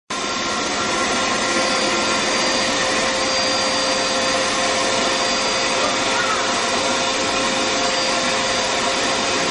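Vacuum cleaner running steadily: a constant rushing motor noise with a steady whine.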